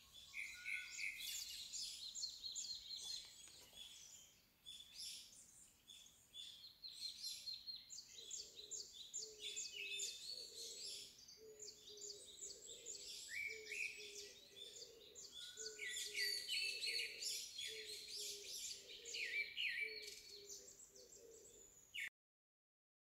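Several birds chirping and singing in quick, overlapping high calls. From about eight seconds in, a lower call repeats in a steady rhythm, roughly once or twice a second, under the chirping. All of it cuts off suddenly near the end.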